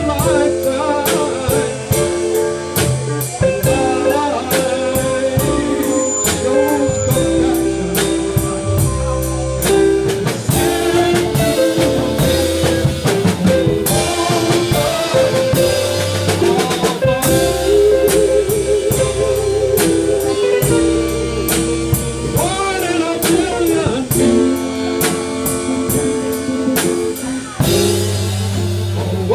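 Live blues band playing: a drum kit keeps a steady beat under electric guitar and keyboard.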